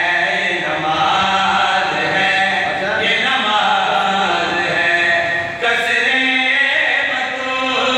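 Several men's voices chanting together into a microphone, a Shia devotional recitation sung in a drawn-out, melodic way with no instruments. It breaks off briefly about five and a half seconds in, then goes on.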